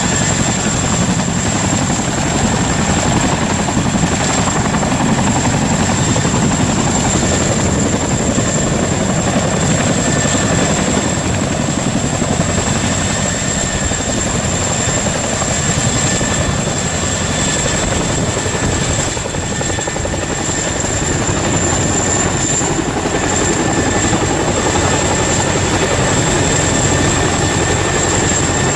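Chinook tandem-rotor helicopter running steadily: heavy rotor noise with a thin, steady high-pitched turbine whine over it.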